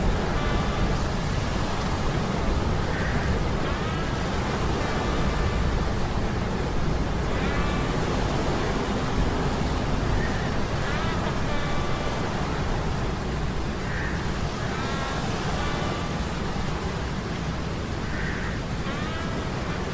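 Ambient sound mix of a steady rushing sea-storm noise over a low machinery hum, with a short pitched gliding tone, like metal creaking, coming back every three to four seconds.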